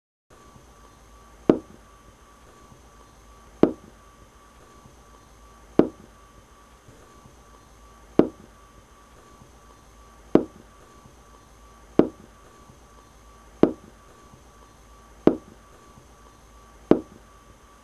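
Sharp single knocks, one about every two seconds and coming a little faster in the second half, over a faint steady hum with a thin high whine.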